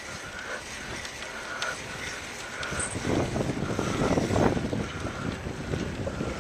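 Wind buffeting the microphone of a handheld camera: a rough low rumble that grows louder about three seconds in.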